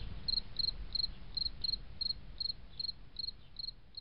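A cricket chirping steadily, about three short chirps a second, over a low background rumble, gradually fading out.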